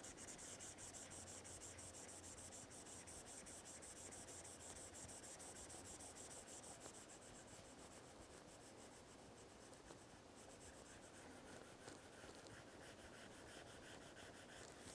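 Faint rubbing of a stylus tip on a tablet's glass screen in quick, even back-and-forth shading strokes, which thin out somewhat in the middle.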